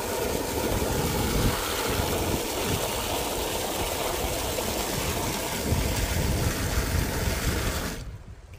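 Tap water running from an outdoor brass spigot into a collapsible plastic bucket, a steady splashing rush as the bucket fills. It cuts off suddenly about eight seconds in as the tap is turned off.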